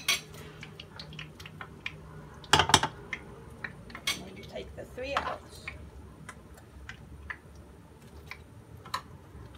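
Chopsticks and a metal spoon clinking against a frying pan and a ceramic bowl as fried mushrooms are lifted out: scattered sharp clinks, with the loudest clatter about two and a half seconds in.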